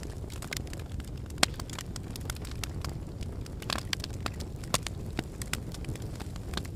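Wood fire burning in a fireplace: irregular sharp crackles and pops over a steady low rumble of flame, with a louder pop about a second and a half in and another near five seconds.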